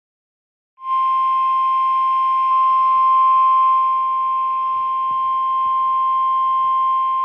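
NOAA Weather Radio 1050 Hz warning alarm tone from a BaoFeng handheld radio, one loud steady tone starting about a second in over a faint hiss of static. It is the signal that a warning follows, here a flood warning.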